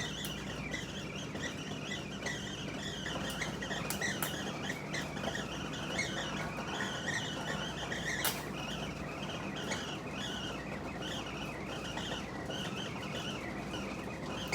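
Many small birds chirping and twittering together over a steady low hum, with a sharp click about eight seconds in.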